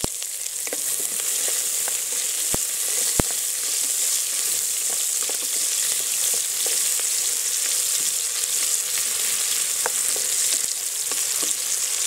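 Sliced onions sizzling in hot ghee and oil in an aluminium pressure cooker, a steady frying hiss as they are sautéed and stirred with a spatula. A few sharp ticks stand out in the first few seconds.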